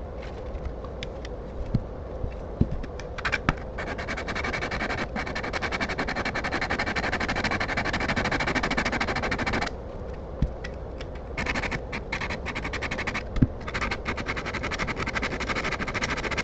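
Steel chisel rubbed quickly back and forth on a sharpening stone, a dense scraping rhythm that starts a few seconds in, breaks off for about a second and a half, then resumes. A few light knocks come before the rubbing starts.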